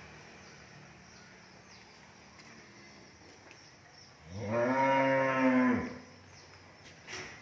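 A cow mooing once: a single long, low call of about a second and a half, starting about four seconds in, its pitch rising slightly and then dropping away at the end.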